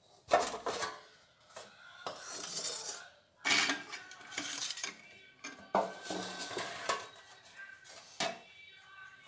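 Aluminium baking pan and other metal kitchenware clattering as they are handled and set down on the counter: several sharp knocks, each with a brief metallic ring.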